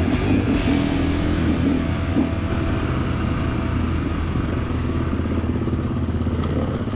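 Gas Gas 350 dirt bike engine running at a steady low pace on a dirt trail, heard from on board the bike.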